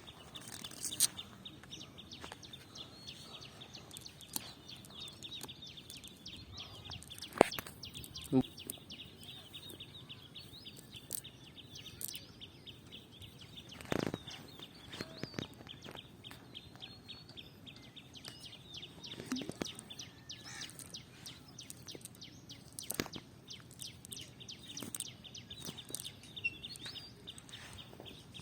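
Rural outdoor ambience: birds calling over a steady high-pitched hum, with scattered small clicks and a few sharp knocks.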